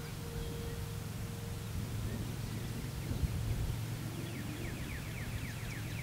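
Outdoor ambience with a steady low rumble. A faint distant warning siren holds a steady tone and stops about a second and a half in. Near the end a bird gives a rapid trill of short falling notes, about six a second.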